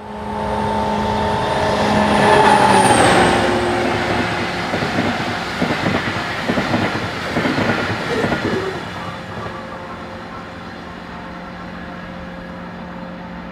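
DB Class 218 diesel-hydraulic locomotive passing at speed at the head of its coaches. The engine note comes in loud and drops in pitch as the locomotive goes by about two to three seconds in. Then comes a run of wheel clicks as the coaches pass, and a steady low drone fading as the train moves away.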